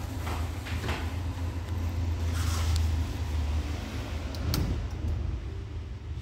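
Steady low hum from the powered bench equipment, with rustling and a few sharp clicks, two of them about four and a half seconds in as buttons on a DC bench power supply are pressed.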